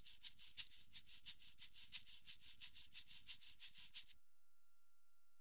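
Faint drum-cymbal leakage left in an isolated vocal track: an even run of short hissy ticks about six a second, stopping abruptly about four seconds in. Near silence with a faint steady tone follows.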